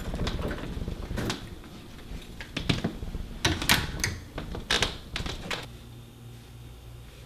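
Keys and a door handled by someone coming in: a run of sharp clicks, rattles and knocks that stops after about five seconds, leaving a low steady hum.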